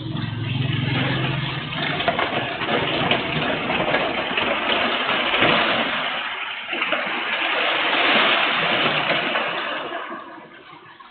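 Heavy rain and gusting wind through a CCTV camera's microphone, swelling and easing, then dying down near the end. A low hum sits under it for the first two seconds.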